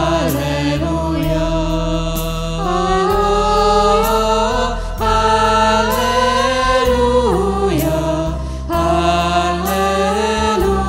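Christian worship song: a sung melody over backing music with a steady bass line and a regular beat.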